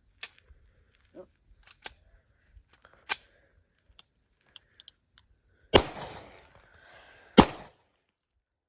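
A .40-calibre gun: small handling clicks and a sharp metallic click about three seconds in, where the gun fails to fire because no round was chambered, then two shots about a second and a half apart, each followed by a short echo.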